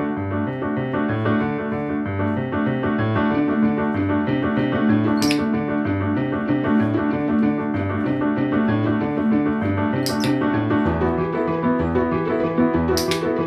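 Piano background music, with three sharp clicks of a training clicker over it: about five seconds in, about ten seconds in and near the end.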